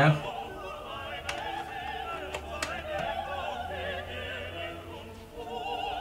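Background classical music with an operatic singing voice whose pitch wavers in vibrato. A few faint clicks sound between one and three seconds in.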